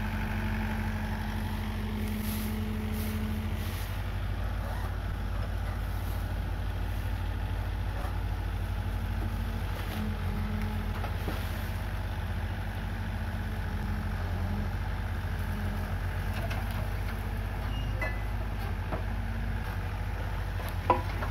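Komatsu PC45 mini excavator's diesel engine running steadily with a low, even hum. A single sharp knock sounds near the end.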